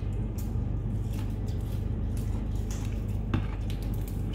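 Steady low hum with scattered light clicks and taps of food and things being handled at a dining table. One slightly louder knock comes about three seconds in.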